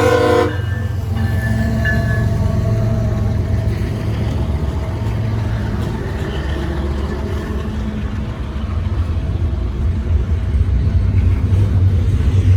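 CSX intermodal freight train passing close by: the locomotive's horn cuts off about half a second in, then the train rolls by with a steady low rumble that grows a little louder near the end.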